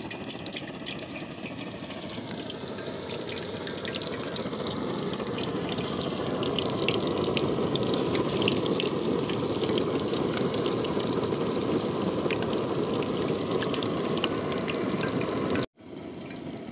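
Batter-coated fish pieces sizzling in hot oil in a kadai, a steady hiss of bubbling that grows louder over the first several seconds. Near the end it breaks off sharply for an instant and carries on more softly.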